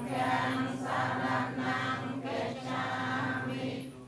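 Buddhist chanting by a group of voices in unison, recited on one steady low pitch, breaking off shortly before the end.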